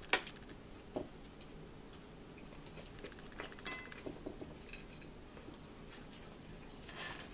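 Metal fork clinking and scraping against a dinner plate: a sharp clink just after the start, another about a second in, and a short rasping scrape near the middle, among scattered lighter taps.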